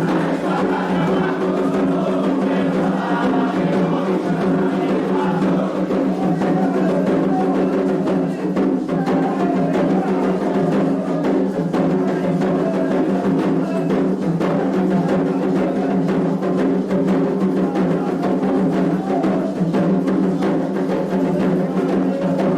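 Candomblé ritual drumming: atabaque drums playing a continuous toque for Ossain, loud and steady throughout.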